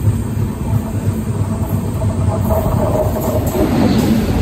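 Express passenger train running at speed: a steady, loud rumble of the coach on the track.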